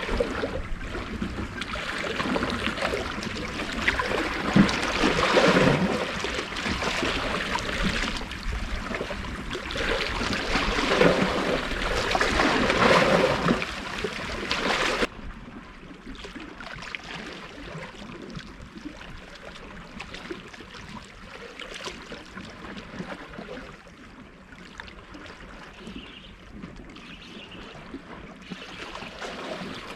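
Sea waves surging and washing against a rocky shore, swelling up twice, then dropping suddenly about halfway through to a quieter, steady wash.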